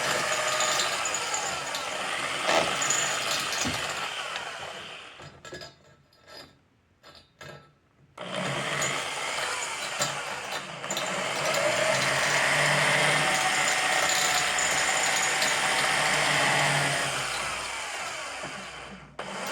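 Handheld power tool working on the welded steel exhaust pipe, cleaning off stick-weld slag. It runs in two stretches: it stops for about three seconds around a quarter of the way in, comes back, and winds down near the end.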